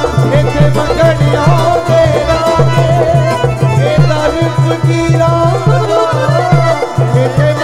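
Instrumental interlude of Sikh dharna kirtan: a dholak beats a fast, steady rhythm, about four to five strokes a second, under a harmonium melody.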